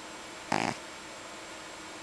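A sleeping Russian Blue cat gives one short snore, about a quarter second long, about half a second in, over a steady hiss.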